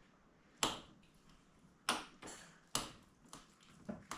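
A utensil knocking sharply against a dish, about six irregular strikes, as food in it is smashed.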